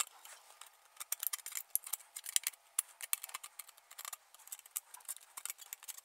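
Pliers crimping and bending the jagged cut rim of a corrugated steel can: a rapid, irregular run of small metallic clicks and scrapes as the sharp edge is flattened down.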